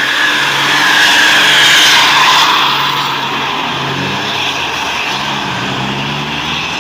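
Tour bus's diesel engine labouring up a steep climb, the engine and road noise swelling to a peak about two seconds in and then easing off, its pitch wavering as the throttle changes.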